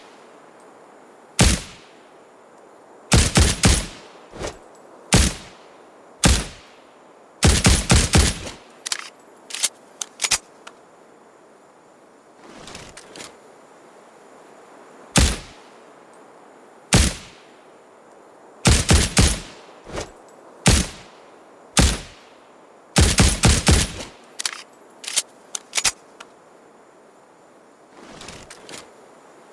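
Suppressed shots from a Ruger Security-9 9mm pistol, fired one at a time and in quick strings of two to four shots, at irregular intervals.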